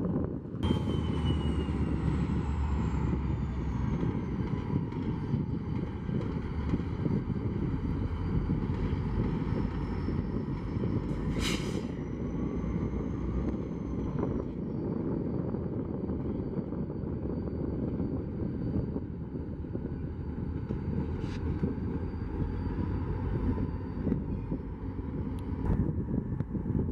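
Steady low rumble of a running vehicle, with a faint high whine falling in pitch over the first few seconds and a sharp click about eleven seconds in.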